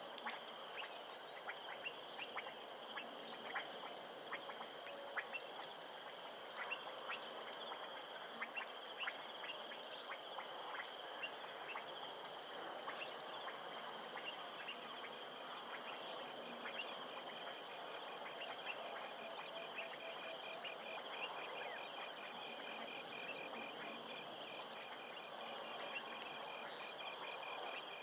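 A night chorus of insects and frogs at a waterhole: a steady high trilling, with a high pulsing call repeated in an even rhythm and short clicking calls scattered through. About halfway in, a fast, rapidly pulsed trill joins.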